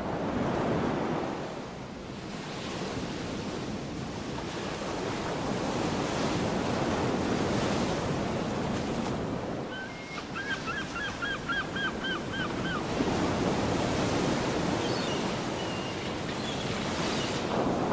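Ocean surf breaking and washing, its noise swelling and easing in waves. About halfway through, a gull gives a rapid series of about nine short calls, and a few faint calls follow a few seconds later.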